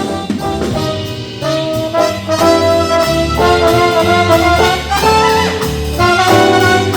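Live swing band playing an instrumental break: brass horns sounding sustained chords over a walking bass and drums.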